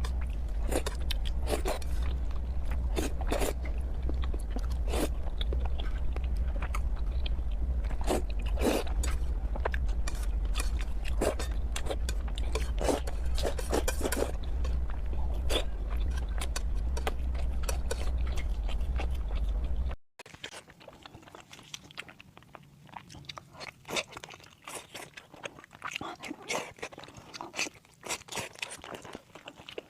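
Close-miked mouth sounds of someone eating braised pork: repeated biting, wet chewing and smacking clicks. A steady low hum runs underneath until it cuts off abruptly about two-thirds through. After that the chewing goes on more quietly.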